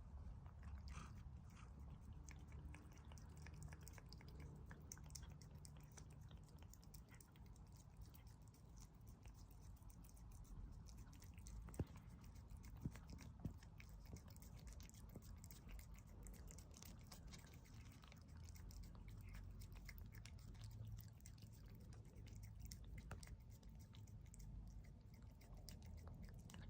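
Kitten licking a squeezable paste cat treat: faint, quick, wet tongue-and-mouth clicks throughout, with three louder clicks a little before the middle.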